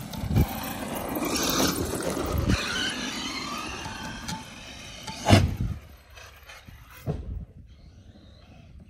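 Traxxas Maxx brushless electric RC monster truck driving hard over dry dirt and grass: the motor and drivetrain whine rises and falls with the throttle over the rattle of the tyres, with a few sharp thumps as it hits bumps, the loudest about five seconds in. It grows much quieter from about six seconds in.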